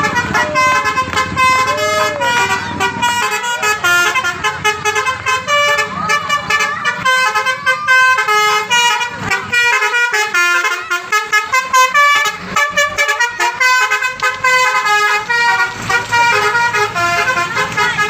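Bus 'telolet basuri' multi-tone air horn playing a fast, continuous melody of short stepped notes, loud.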